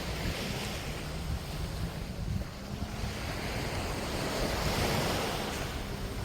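Sea waves washing onto the beach, one surge of surf swelling about four seconds in, with wind rumbling on the microphone.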